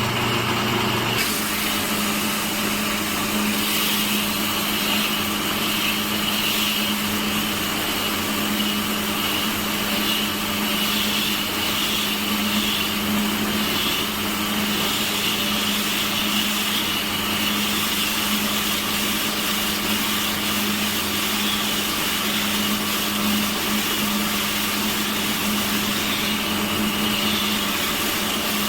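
Electric woodworking machine running steadily with a constant hum and high whine; the tone shifts slightly about a second in.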